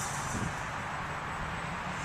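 Strong wind rushing and buffeting against the microphone, with the thin, high buzz of a small brushless electric motor on a foam RC delta-wing plane in flight.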